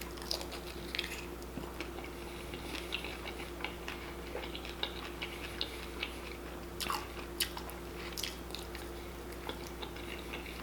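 Close-up eating sounds of chicken wings: irregular wet chewing and crunching with small clicks, over a steady low hum.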